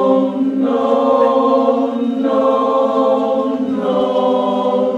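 The lead and baritone sections of a chorus sing a tuning exercise a cappella: a short series of about four sustained, steady-pitched held notes, each separated by a brief break. The director hears the baritones' second note as slightly flat, about 20 cents low.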